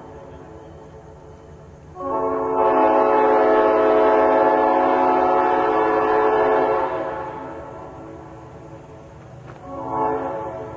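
Multi-chime locomotive air horn sounding a chord. A loud long blast of about five seconds starts two seconds in, then fades, and a short blast follows near the end.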